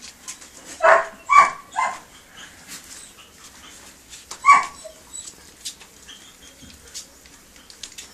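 Dog yelps: three short high-pitched yelps in quick succession about a second in, and one more a few seconds later, over small clicks of puppies eating from a metal bowl.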